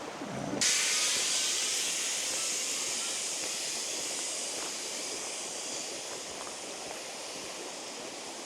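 Zip-line trolley running along its steel cable: a high hiss that starts suddenly about half a second in, then slowly fades as the rider moves away.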